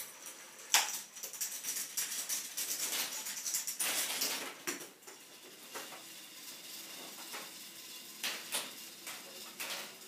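K'Nex fruit machine running: a sharp knock about a second in as it is set going, then a loud plastic clatter of the spinning reels and gearing for about four seconds. This settles into quieter rattling, with a few single clicks near the end as the reels stop.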